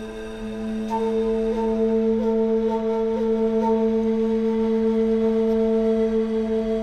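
Background music of long held droning notes. A higher note joins about a second in, with a few short slides in pitch over the next few seconds.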